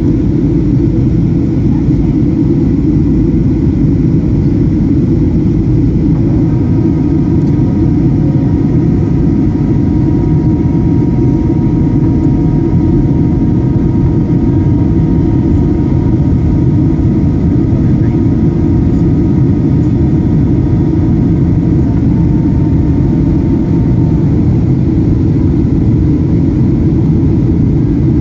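Cabin noise of a Boeing 737-800 descending on approach: a steady low roar of airflow and its CFM56-7B engines. A set of steady engine whine tones comes in about six seconds in and drops away a few seconds before the end.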